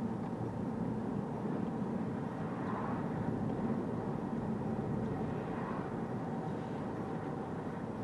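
Steady tyre road noise from Bridgestone Regno tyres rolling on asphalt, heard inside a moving Toyota Corolla Touring Hybrid's cabin with the driver's window open a couple of centimetres. The owner puts the loud noise down to tyres on the road surface rather than wind.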